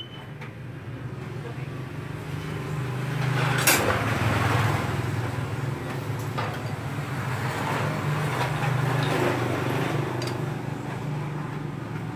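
A vehicle engine runs steadily with a low hum that grows louder over the first few seconds. Over it come scattered light metal clicks and clinks from motorcycle engine parts and tools being handled, with one sharp click about four seconds in.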